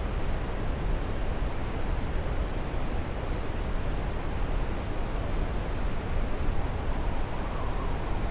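Steady rushing noise of a large waterfall and the fast river below it.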